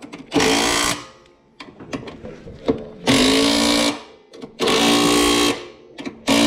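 Makita 18 V cordless driver running in four bursts of about a second each, the last one short, as it drives home the bolts that fasten a tracked snowblower's handlebar.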